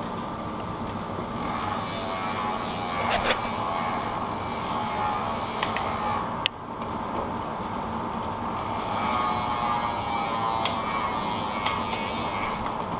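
Mountain bike drivetrain turned over on the stand, the chain running steadily over a SRAM XO1 cassette fitted with a OneUp 44-tooth cog and through the rear derailleur. A few sharp clicks come through, about three seconds in and again around six and eleven seconds.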